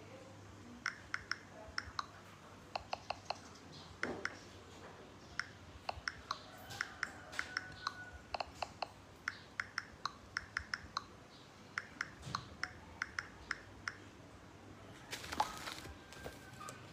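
Many light, sharp clicks in quick runs of two or three, with a short rustle near the end.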